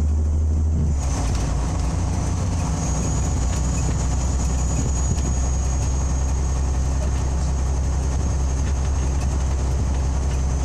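Scania OmniLink CL94UB city bus heard from inside while it drives: the engine's steady low drone, with road and tyre noise and a thin high whine. About a second in, the low drone eases and a wider rushing noise comes up and holds.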